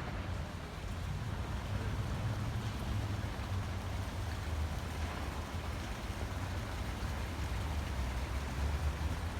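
Steady outdoor background noise: an even hiss with a low rumble underneath, and no distinct events.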